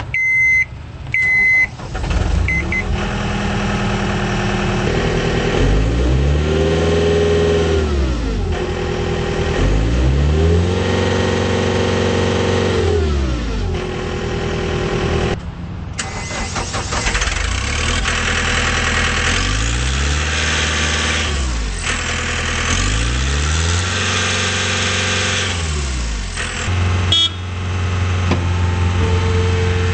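Two short beeps, then a John Deere 318D skid steer's diesel engine starts about two seconds in. The engine is revved up and back down four times, with a short beep near the end, and then runs steadily at a raised speed.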